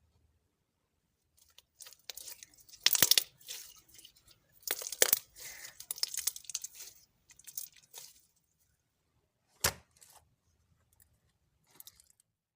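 Slime being handled and stretched, giving crackling, tearing noises in irregular bursts, loudest about three and five seconds in, followed by a single sharp click near the ten-second mark.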